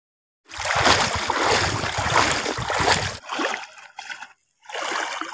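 Feet wading through shallow river water, splashing with each step; loudest from about half a second in to three seconds in, then quieter, with a brief break before the splashing resumes near the end.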